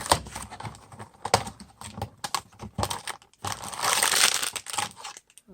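Cardboard blind box and its packaging being opened by hand: a run of sharp clicks and taps, then a denser crinkling rustle about three and a half seconds in.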